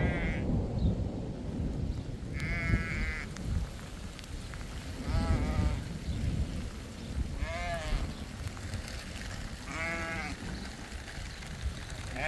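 Sheep bleating, four separate quavering calls a couple of seconds apart, over a steady low rumble.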